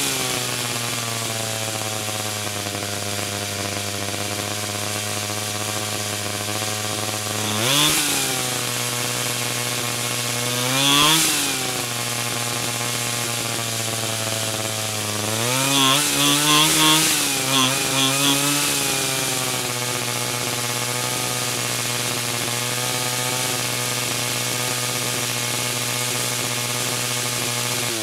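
A 49cc pocket bike's small two-stroke engine idles steadily, running again on a freshly replaced carburetor. It is revved briefly twice, then blipped several times in quick succession a little past the middle.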